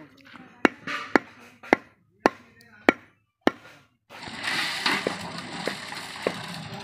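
Meat cleaver chopping mutton on a wooden log chopping block: six sharp chops about half a second apart. About four seconds in, a steady stream of water from a hose splashing on wet ground and into a metal cooking pot.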